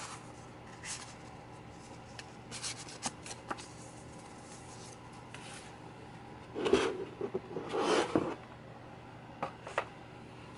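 Paper and cardboard rustling and rubbing from handling a CD's paper sleeve and a large photobook in its box: short scattered rustles, with the loudest stretch about six to eight seconds in.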